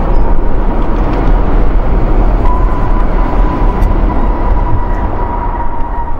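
Twin-engine jet airliner landing and rolling out on the runway: a loud, steady rush of jet engine noise with a high whine that grows stronger about two and a half seconds in.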